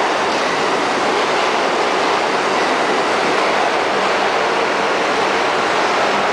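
New York City subway train running at speed through a station, heard from inside the car: a steady, loud rush of wheel and track noise with a faint hum underneath.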